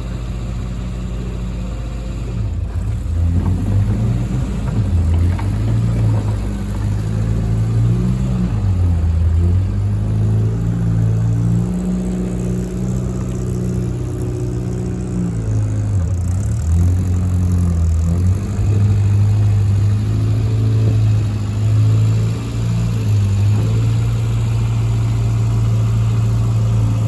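1965 Morris Minor pickup's 1098cc BMC A-series four-cylinder petrol engine running as the truck is driven slowly around. Its note rises and falls several times as it speeds up, eases off and slows.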